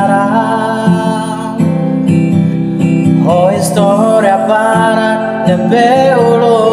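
A man singing a Tetum-language song over guitar accompaniment.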